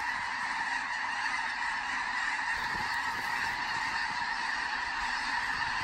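A huge flock of snow geese calling overhead: a dense, steady din of countless overlapping calls with no single bird standing out.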